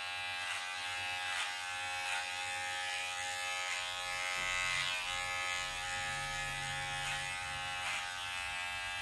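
Electric hair clippers running with a steady buzz as they cut short hair at the back of the neck.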